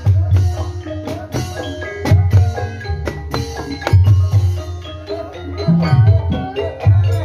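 Javanese ebeg dance accompaniment: struck keyed percussion playing a busy interlocking pattern over drumming, with deep strokes about every two seconds.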